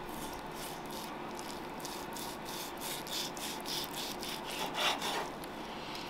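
Chef's knife sawing through a thick steak with a charred crust on a wooden cutting board: quick back-and-forth rasping strokes, several a second, with one louder stroke about five seconds in.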